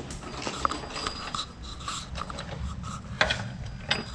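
Scraping and rubbing with scattered sharp clicks and a couple of louder knocks about three seconds in and near the end, as the engine is shifted into place by hand and foot.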